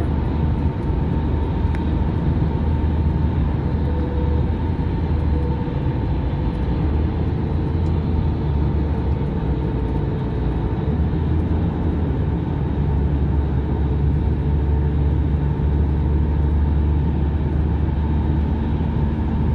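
Steady road and engine noise heard inside a moving car's cabin: a low rumble with tyre hiss, at a constant speed with no changes, and a faint steady whine over it.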